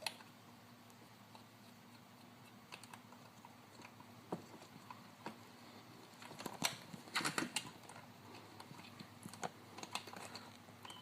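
Scattered light metallic clicks and taps of a throttle cable being worked into a motorcycle carburetor's cable slot by hand, with a quick cluster of clicks about six to seven seconds in, over a faint steady hum.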